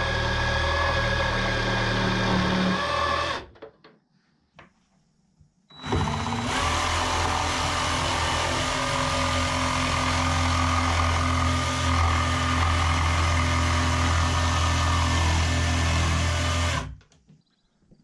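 Cordless jigsaw cutting through thick painted plywood siding. It runs for about three seconds, stops for a couple of seconds, then starts again and cuts steadily for about eleven seconds before stopping.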